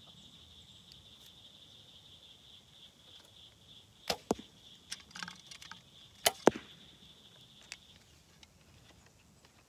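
Two Diamond compound bows shot one after the other, about two seconds apart: each shot is a sharp snap of the release followed a fraction of a second later by the arrow striking the target, the second shot the louder. A steady high buzz runs underneath and stops near the end.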